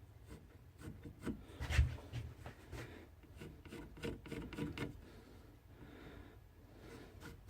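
Carving blade shaving and scraping birch wood in short, irregular strokes while the tip of a hand-carved spoon is rounded off; the loudest stroke comes about two seconds in.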